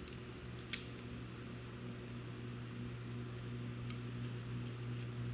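Light clicks and taps of drone-frame parts and screws being handled while an arm is fitted, with one sharper click about three-quarters of a second in, over a steady low hum.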